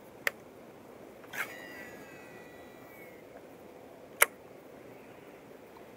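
Baitcasting reel during a cast: a click, then a whine from the spinning spool that falls slowly in pitch over about two seconds as line pays out, and a sharp, loud click from the reel a little later, over a steady hiss.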